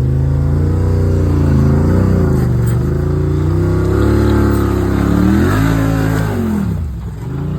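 Side-by-side UTV engine revving hard under load, its pitch rising and falling repeatedly as the throttle is worked. It dips sharply near the end, then picks up again.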